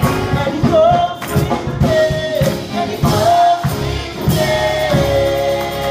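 Gospel song: a lead singer and a youth choir singing over instrumental backing with a steady beat, with long held and bending notes.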